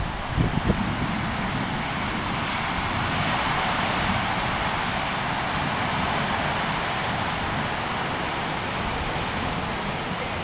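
Strong storm wind and heavy rain on a CCTV camera's microphone: a steady rushing noise that swells slightly through the middle, with gusts buffeting the microphone in the first second.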